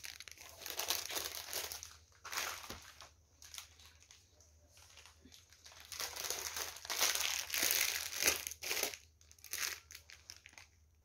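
Plastic bags and packets crinkling and rustling in irregular bursts as they are handled, loudest in the second half.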